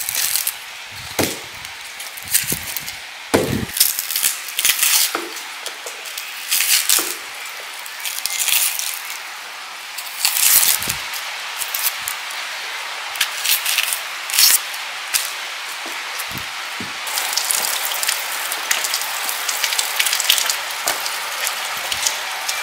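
Dry, papery onion skins crackling and rustling as onions are handled and peeled with a knife, with irregular crisp crackles and an occasional knock.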